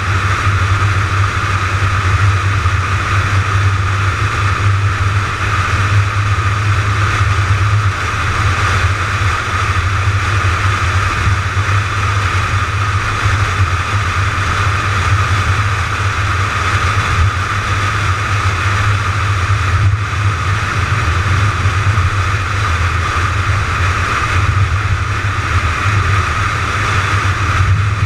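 Steady wind and road noise from a car cruising at highway speed, picked up by a car-mounted GoPro, with a constant low drone and no revving.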